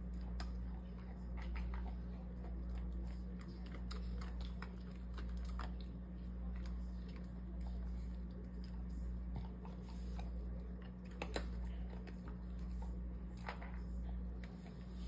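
Beagle eating dry kibble from a stainless steel bowl: irregular crunching and chewing with scattered sharp clicks, over a steady low hum.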